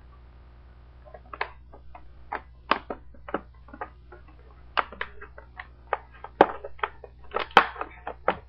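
Plastic clamshell packaging being handled and pried apart: irregular crackles and clicks, starting about a second in and coming faster and louder toward the end.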